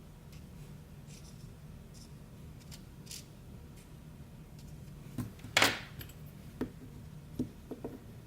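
Small metal lock pins clicking and clattering as they are handled and set down on a hard surface: faint ticks at first, a brief rattle about five and a half seconds in, then a few single clicks. A low steady hum runs beneath.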